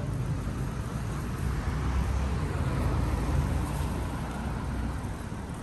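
Road traffic, with a car passing close by and swelling to its loudest about three seconds in, over a steady low rumble.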